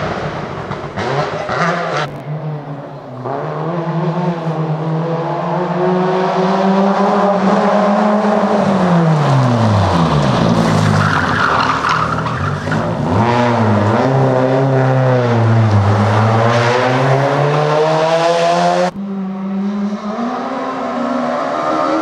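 Peugeot 205 rally car's engine coming off the throttle and falling in pitch into a tight corner, then revving back up as it pulls away, with a brief tyre squeal in the middle of the corner. Shorter passes by other rally cars come before and after it.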